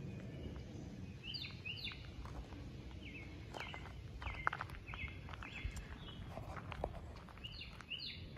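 Footsteps on a gravel and dirt path, with a bird chirping in short runs of high notes, a run about a second and a half in, more from about three to six seconds, and another near the end.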